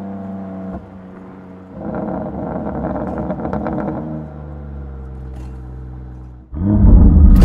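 BMW M2 Competition's S55 twin-turbo straight-six running through an aftermarket exhaust. The note falls as the revs drop, swells into a louder, rougher stretch, then settles to a steady lower drone before a sudden, much louder rev near the end.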